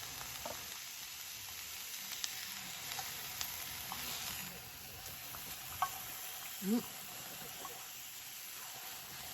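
Meat sizzling on a grill: a steady frying hiss with scattered small pops. A short rising squeak comes a little past the middle.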